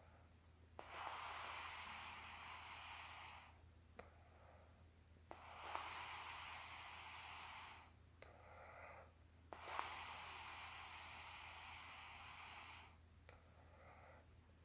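A woman snoring in her sleep: three long, hissing breaths of about three seconds each, coming at an even pace with short pauses between, each starting with a small click. A faint steady low hum runs underneath.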